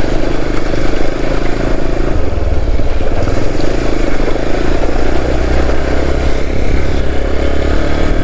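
Hero Xpulse 200 4V's single-cylinder engine running steadily while the motorcycle is ridden, its low note shifting and growing deeper about two seconds in.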